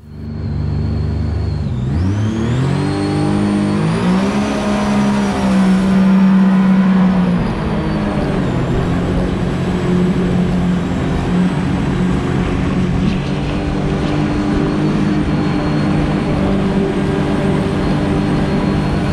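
Jet boat's outboard motor revving up as the boat gets under way, its pitch climbing steeply over a couple of seconds. It then runs steadily at cruising speed with rushing noise underneath, settling slightly lower in pitch a few seconds later.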